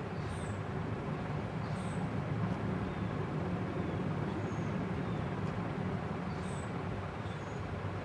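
Encon Crompton Greaves Princess ceiling fan running steadily: an even hum and whoosh of the motor and spinning blades.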